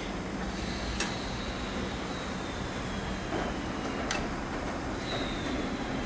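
The 01 202 Pacific steam locomotive standing at a platform, giving off a steady low rumble and hiss. Two sharp clicks come about one and four seconds in, and a faint thin high tone drifts slowly down in pitch.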